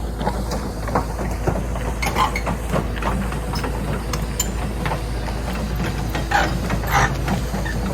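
Heavy excavator's diesel engine running steadily while it places boulders for bank riprap, with a series of knocks and clatters of rock; the loudest come about two seconds in and again around six to seven seconds in.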